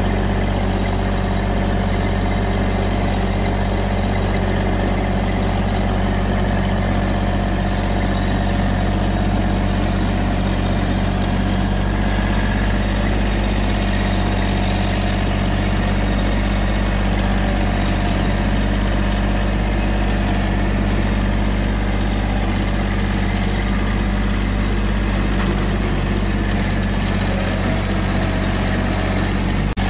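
Massey Ferguson GC1705 subcompact tractor's three-cylinder diesel engine running steadily as the tractor drives with a load of brush on its loader's pallet forks.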